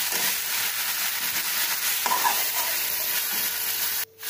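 Chicken pieces and spice paste sizzling in a metal kadai as a metal spatula stirs and scrapes them, the chicken being fried down (kosha) in the masala. The sound drops out for a moment near the end.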